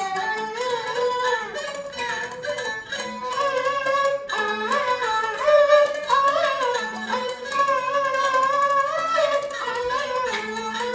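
Peking opera aria sung by a man into a microphone, the melody sliding and ornamented, over the accompaniment of a traditional Peking opera ensemble, with plucked and bowed strings and sharp percussion clicks.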